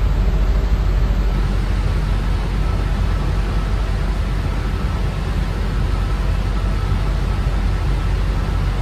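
Steady low rumble and hiss of a bus cabin on the move, engine and tyres on a rain-soaked road, with a faint steady whine over it.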